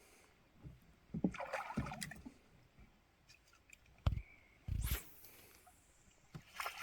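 Water splashing and sloshing beside a canoe as a hooked northern pike is brought in, with two dull knocks on the canoe about four and five seconds in.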